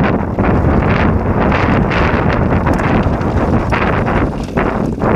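Wind buffeting the microphone of a mountain bike's action camera at speed, a steady loud rush, with frequent short knocks and rattles from the bike riding over rough trail.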